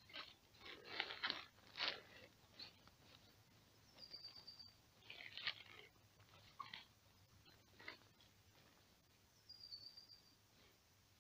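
Bivy bag fabric and a plastic ground tarp rustling and crinkling in irregular bursts as the bag is handled and spread out, the busiest stretch in the first two seconds.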